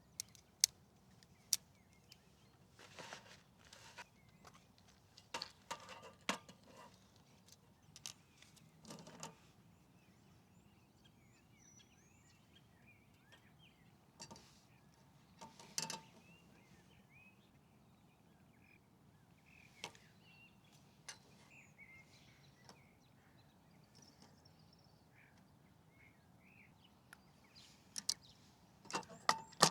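Quiet lakeside ambience: scattered light clicks and short rustles of handling, with faint bird chirps in between.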